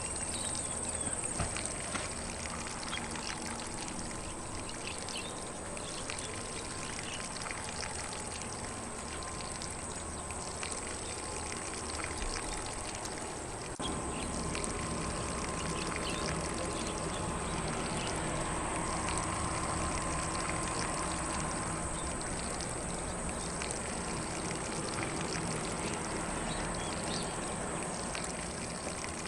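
Lawn sprinkler spraying water steadily over grass, with a steady high-pitched insect hum under it. The sound gets slightly louder about halfway through.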